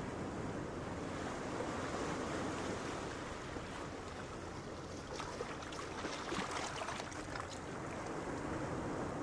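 Steady rush of surf washing on the beach, mixed with wind, with a spell of fine crackling about five to seven seconds in.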